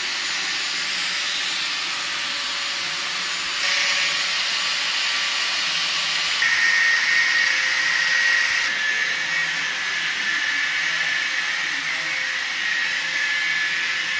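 Angle grinder running under load against the masonry of a doorway arch: a steady high whine over a hiss. Its pitch and level shift a few times, about 4, 6.5 and 9 seconds in, and it cuts off abruptly at the end.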